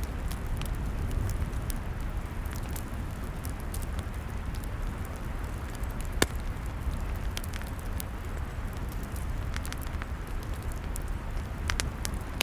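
Log fire burning, a steady low rumble and hiss with irregular sharp crackles and pops, one louder pop about six seconds in.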